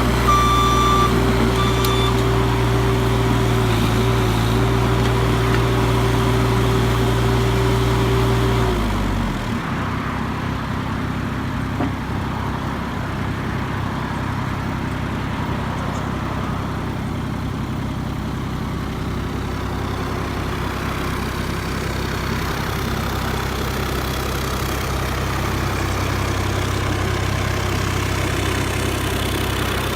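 Engine of a Terex PT-30 tracked skid steer running steadily at raised throttle, then dropping back to idle about nine seconds in and idling on.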